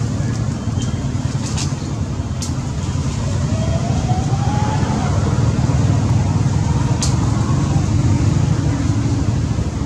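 Steady low rumbling noise throughout, with a few faint sharp clicks and one faint short call that rises and falls in pitch about four seconds in.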